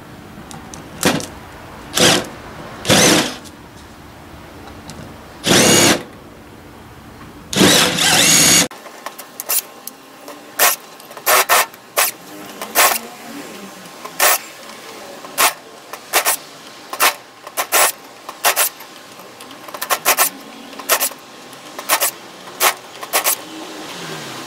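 Bosch power drill running in short bursts as it bores into the brass burner of an alcohol stove: a few spaced pulls of the trigger with two longer runs, then a quick string of brief bursts.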